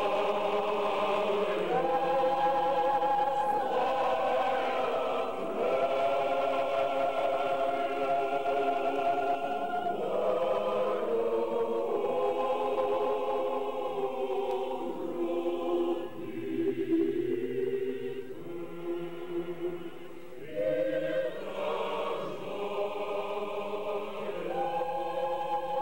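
Choir singing slow, long held chords as a background music track.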